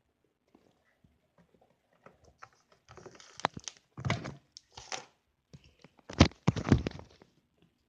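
Slime being handled, giving irregular clicks and short crackling, squishing bursts, loudest about six seconds in.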